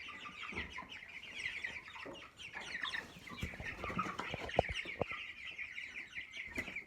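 A flock of broiler chickens calling continuously, many short falling chirps overlapping, with a few soft knocks near the middle.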